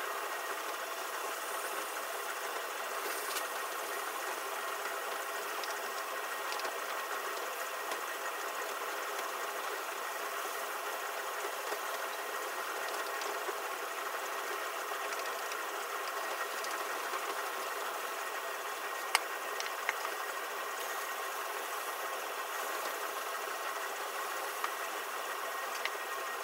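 Atlas 10-inch lathe running steadily at high speed while 320-grit sandpaper on an MDF board is held against the spinning workpiece face to polish it flat, with a few sharp ticks in the second half.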